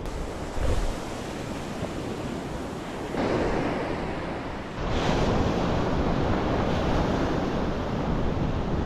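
Surf breaking on a sandy ocean beach, with wind buffeting the microphone. There is a short bump less than a second in. The wash of the waves is louder from about three seconds in, and louder again near five seconds.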